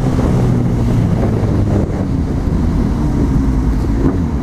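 Honda CB1000R's inline-four engine running steadily while riding, with wind noise on the microphone.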